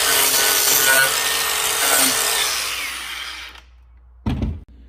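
Angle grinder fitted with a Warrior chainsaw-tooth wood carving disc, cutting and carving into a wood board. About three seconds in it is switched off and fades as it spins down, then a short dull thump near the end.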